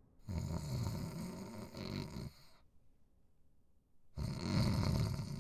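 Two long, rasping snores voiced for a cartoon character, with a short quiet gap between them.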